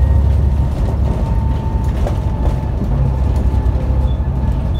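Volvo bus engine and drivetrain running while the bus is under way, heard from inside the passenger saloon: a heavy low rumble with a thin steady whine above it.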